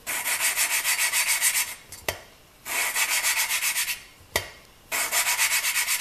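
Valve being hand-lapped into its seat in a Kawasaki KZ650 cylinder head: a gritty rasp of the valve face grinding on the seat through lapping compound as the suction-cup lapping stick is spun back and forth between the palms. Three spells of rapid strokes, each gap ending with a sharp tap as the valve is lifted and dropped back onto its seat.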